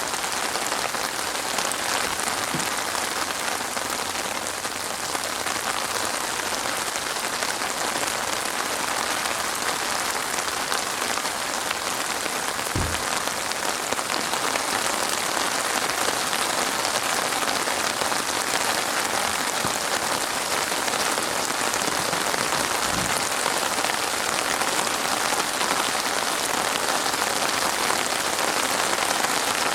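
Steady, dense rain falling on a surface, with two brief low thuds about thirteen and twenty-three seconds in.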